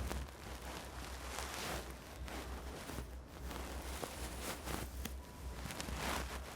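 Hands rubbing and working through hair and scalp in a head massage, irregular rustling swishes with a few sharp crackles, over a steady low hum.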